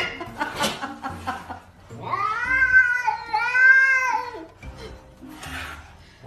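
A domestic cat yowling (caterwauling): two long, wavering yowls back to back in the middle.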